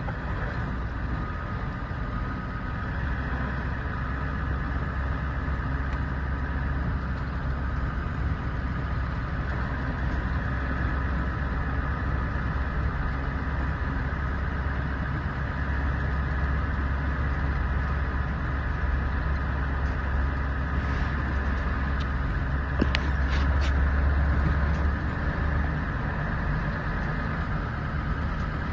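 Vehicle engine and tyre noise heard from inside the cab while driving: a steady low drone, with a few brief clicks a little over twenty seconds in.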